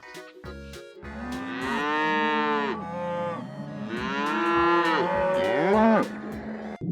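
A cow mooing twice, two long drawn-out calls, over light background music.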